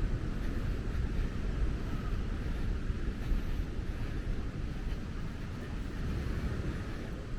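Wind buffeting the microphone over the steady rush of ocean surf, with no distinct events.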